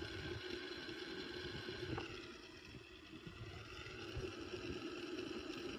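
Several fidget spinners' ball bearings whirring as they spin down: a faint, steady hum with a few held tones.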